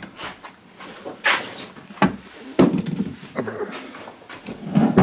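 Metal parts of a ride-on mower's transaxle being pulled out and put down: a handful of separate clunks and clatters, the loudest about a second in.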